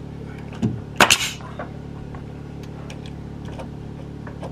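Pneumatic nail gun firing, a sharp snap about a second in with a fainter knock just before it, over a steady low hum.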